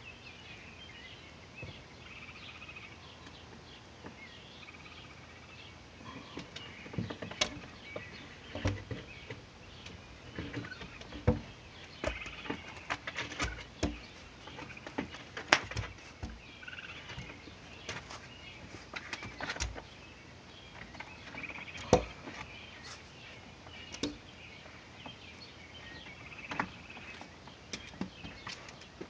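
Birds chirping faintly throughout. From about six seconds in come scattered scratches and sharp knocks as a raccoon clambers and claws at a soffit opening, trying to pull itself up into the attic; two knocks, about halfway through and about two thirds through, are the loudest.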